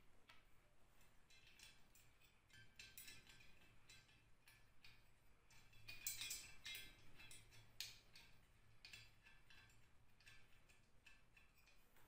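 Faint clicks and light metallic taps from hands handling an electric motor's finned metal housing and frame, scattered irregularly, a little louder about six and eight seconds in.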